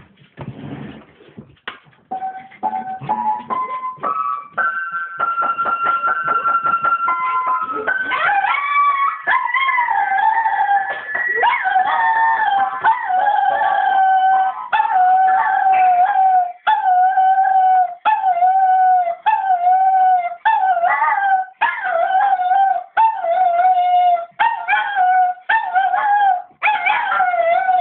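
Piano notes stepping up in pitch, then one note struck rapidly over and over; from about eight seconds in, a dog howls along to it in long wavering howls that break off and start again roughly once a second.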